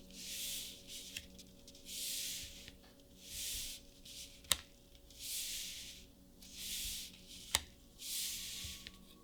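Disney Lorcana trading cards being slid one by one off a stack during a card reveal, with a papery swish about every second and a half. Two sharp clicks come about halfway through and again past the middle.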